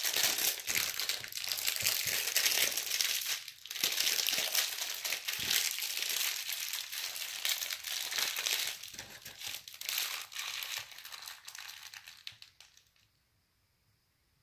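Plastic packaging wrappers crinkling and rustling while being rummaged through by hand, in a steady crackling jumble that fades out to near silence shortly before the end.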